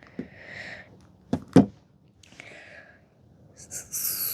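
Plastic 6x6 speed cube being turned: a few sharp clicks of layers snapping into place, with soft scraping between them, then a louder hiss near the end.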